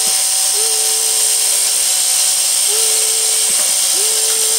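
Electric food processor running steadily at full speed, with a constant high whine from the motor, puréeing green chili and ginger paste while oil is poured in through the feed tube.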